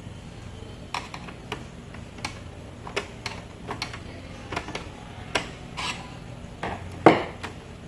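Irregular light clicks and taps of small hard plastic and metal parts and tools being handled, with one louder knock about seven seconds in.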